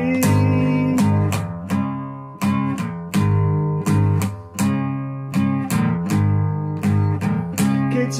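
Instrumental break in a folk-rock song: guitar chords strummed in a steady rhythm, no vocals.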